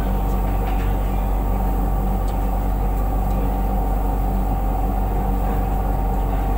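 Steady mechanical hum of the smoke-extraction ventilation over yakiniku grill tables, with a few faint clicks.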